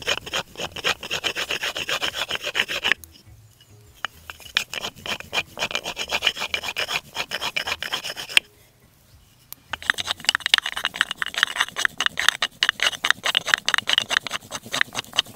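A wooden block rubbed quickly back and forth over a cotton roll filled with wood ash, rolling it against a wooden board, in three bouts of rapid strokes with two short pauses. This is the fire-roll method: the friction is heating the ash-filled cotton until it smoulders.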